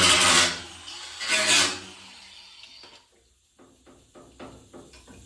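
Handheld power tool working on a car's sheet-metal body panel, run in two short bursts: the first stops about half a second in, the second runs briefly near the middle. Then come scattered light clicks and knocks of metal being handled.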